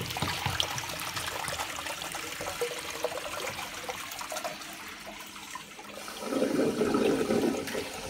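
Old American Standard wall-hung urinal flushing through its chrome flush valve: a steady rush of water sheeting down the porcelain, growing louder and lower from about six seconds in.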